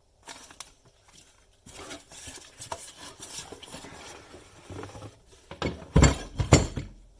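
Parts of a Tefal Le Saucier sauce maker being handled: scattered clinks, scrapes and rattles of hard pieces, with a few loud knocks about six seconds in.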